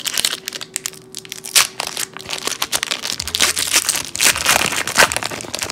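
Foil wrapper of a hockey card pack being torn open and crinkled by hand: a dense, uneven run of crackles and rustles.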